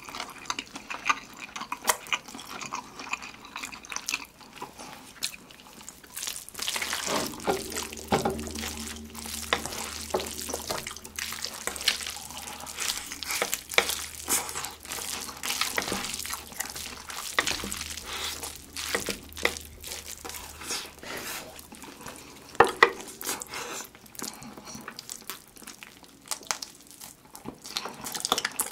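Close-miked wet eating sounds: biting and chewing sauce-glazed fried chicken and slurping and chewing black-bean-sauce instant noodles, full of small sticky smacks and clicks. A busier, wetter stretch of eating noise runs through the middle.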